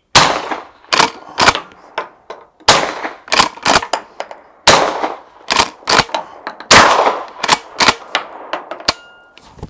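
Remington 870 pump-action 12-gauge shotgun fitted with a SilencerCo Salvo 12 suppressor, fired four times about two seconds apart. The pump is racked between shots with a double clack. The loads run from slow rubber buckshot through light and field birdshot to a slug, which is not much louder through the suppressor.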